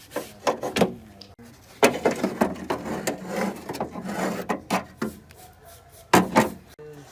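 Hand work on a part: a series of knocks and clatters, with a few seconds of rubbing or scraping in the middle and two sharp knocks near the end.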